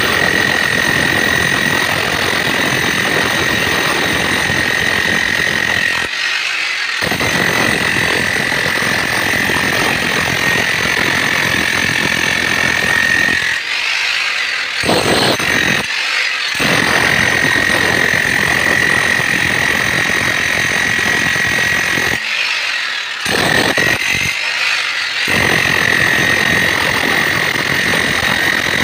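Small electric breaker hammer with a chisel bit chipping into concrete and brick: a loud, continuous rapid hammering with a steady high whine, stopping for about a second several times as the trigger is released.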